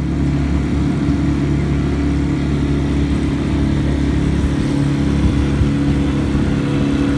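Boat's outboard motor running at a steady speed under way, a steady engine drone.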